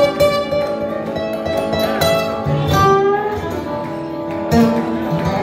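Two acoustic guitars played together in a live duet, picked and strummed notes sounding continuously.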